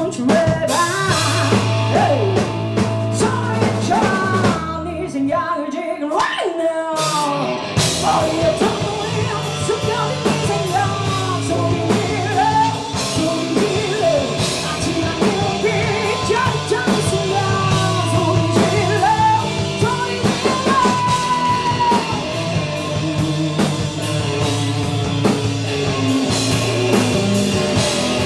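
Live rock band playing: a female lead vocal over electric guitar, electric bass and drum kit. About five seconds in, the bass and drums drop out for a couple of seconds, leaving the voice and guitar, and the full band comes back in near the eight-second mark.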